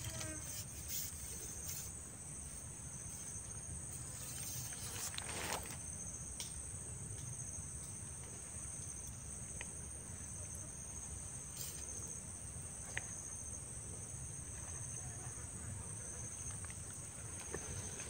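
Steady, high-pitched chorus of insects shrilling continuously, with a few faint clicks and knocks scattered through it.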